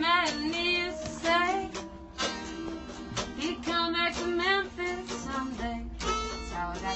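Harmonica playing a melody with bent, wavering notes over a strummed tenor guitar, a live acoustic country tune in an instrumental break.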